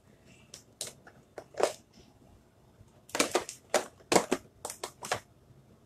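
Small plastic craft tools rattling and clicking as a hand rummages through a tabletop caddy: a few scattered taps, then a quicker run of clicks and rustles from about three seconds in.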